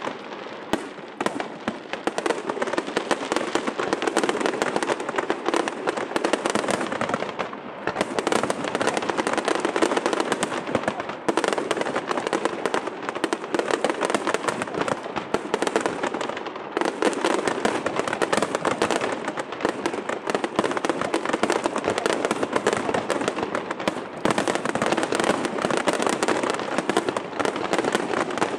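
Aerial fireworks display: many shells bursting with crackling stars, a dense run of rapid, overlapping bangs and crackles with only brief lulls.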